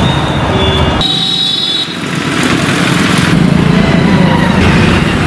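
Road traffic: motorcycles and cars running past, a steady noisy rumble, with a brief high squeal about a second in.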